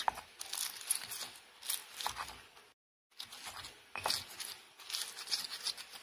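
Stone pestle crushing and grinding raw red chillies, shallots and garlic with salt in a stone mortar: irregular crunching, squashing and scraping strokes, broken by a short silence about halfway through.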